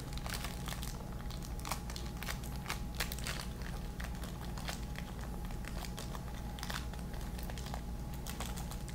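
Crinkly yellow toy wrapper being crumpled and unfolded by hand: a run of small crackles throughout.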